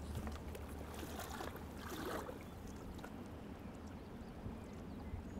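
Faint, steady flowing-river ambience, with a few small faint ticks.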